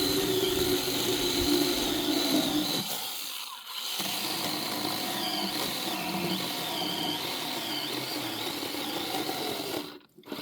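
Small electric power saw running and cutting into a thick, resinous pine log, its motor whine wavering in pitch as the load changes. The whine eases briefly about three and a half seconds in, then runs on and stops near the end.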